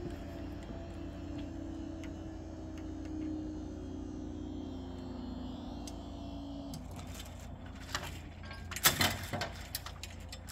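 Level crossing barrier mechanism running as the booms rise: a steady low hum that drifts slightly down in pitch and stops about seven seconds in. A few sharp knocks follow near the end.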